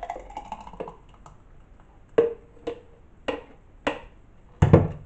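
Thick smoothie poured from a plastic blender jug into a glass during the first second. Then five sharp knocks about half a second apart as the jug is tapped to shake out the last of the smoothie, the last knock the loudest and heaviest.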